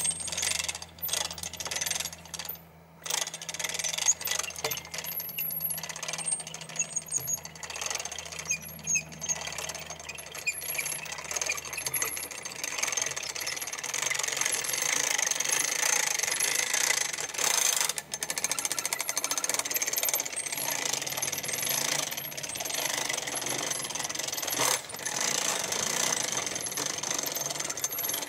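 Hand-cranked ratchet winch on an ATV timber trailer being wound, its pawl clicking rapidly and without a break as the steel cable hauls a log onto the trailer, a little louder from about halfway through.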